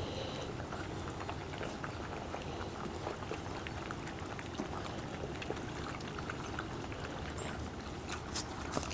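Portuguese Water Dog puppies eating dry kibble together from a pan: many small overlapping crunches and clicks, over a steady low rumble.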